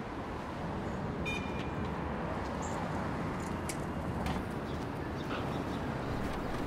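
Steady city street background: a low hum of traffic noise, with a short high squeak about a second in and a few faint clicks.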